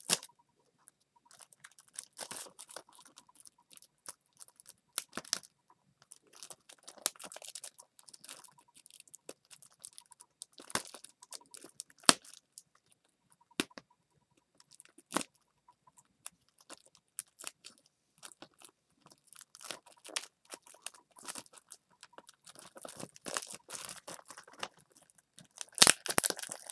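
Plastic shrink-wrap being picked at, torn and peeled off a Blu-ray case: irregular crinkling and crackling with scattered sharp clicks, busiest and loudest near the end.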